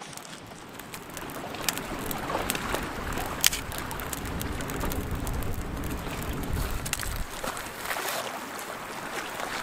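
Wind buffeting the microphone over lapping lake water, with several sharp cracks of dry sticks being snapped by hand for the campfire, the loudest about three and a half seconds in and a few together near the end.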